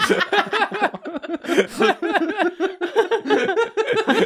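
People laughing after a joke, a steady run of quick, repeated ha-ha-ha sounds.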